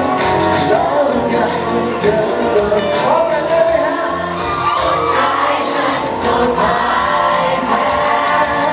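A male singer singing live into a handheld microphone over backing music, a Thai pop song.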